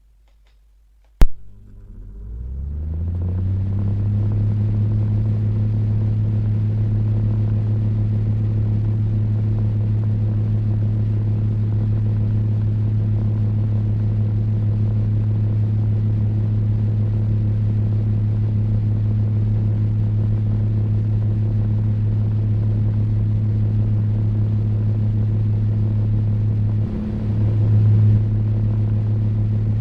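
Table fan switched on with a sharp click about a second in. Its motor hum rises in pitch as the blades spin up over two or three seconds, then it runs steadily with a low hum and a rush of air. Near the end there is a brief dip and swell.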